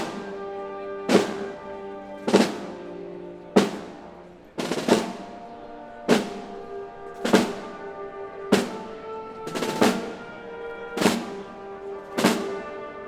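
Symphony orchestra playing a slow Spanish processional march: held chords with a heavy drum-and-cymbal stroke about every 1.2 seconds, each stroke ringing off before the next.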